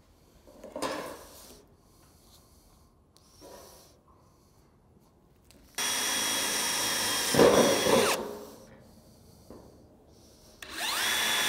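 Cordless drill spinning up and boring through thin metal gable trim to pre-drill screw holes: two runs of a steady motor whine, each starting suddenly, the first about six seconds in and lasting about two seconds, the second starting near the end. Faint handling noises come before.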